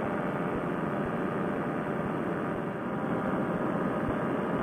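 Fresh Breeze Monster paramotor engine with a freshly repaired exhaust silencer, running as a steady drone in cruise flight, mixed with propeller and air noise.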